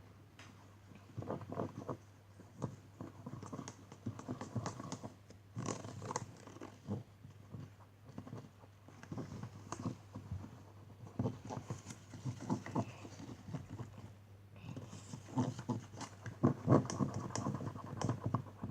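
Spoon stirring and scraping a thick, sticky slime mixture of glue, flour, cornstarch and shaving cream in a bowl: irregular taps, scrapes and squelches, busier near the end.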